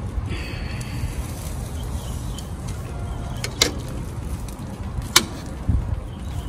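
Metal grill tongs clicking sharply twice against the gas grill's grates while beef steaks are laid on, over a steady low rumble.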